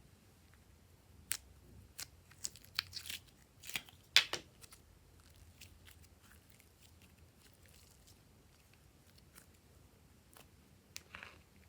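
Glossy slime being worked by hand: scattered sticky clicks, pops and crackles, densest in the first few seconds, then only a few single clicks and a short crackle near the end.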